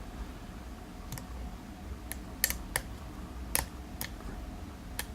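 A steel lock pick clicking against the pins of a 7-pin Zeiss Ikon euro cylinder under tension: scattered sharp little ticks, about seven in five seconds, at uneven spacing.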